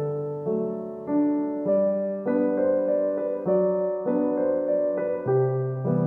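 Background piano music: a steady melody of notes and chords, a new one struck about every 0.6 seconds, each fading before the next.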